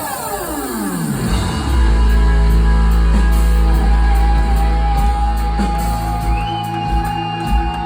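Live rock band playing: a pitch sweep falls steeply over the first second and a half, then the band holds a long, loud low chord with a steady higher note sustained over it.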